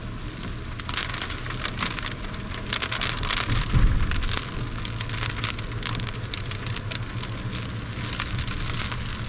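Rain striking a vehicle as many short irregular hits, over the steady low hum of its running engine, with one heavier low thump about four seconds in.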